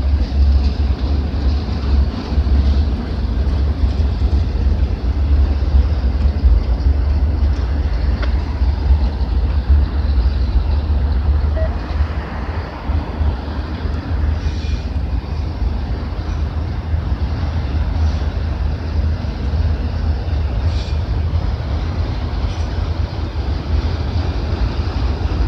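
Freight train of autorack cars rolling slowly past, a steady low rumble of wheels and cars on the rails.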